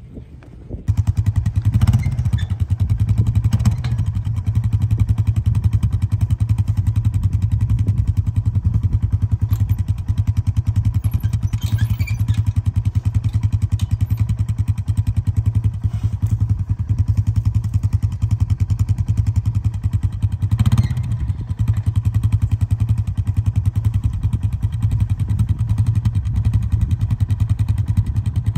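Four-wheeler ATV engine idling steadily, starting about a second in, with a few brief knocks over it.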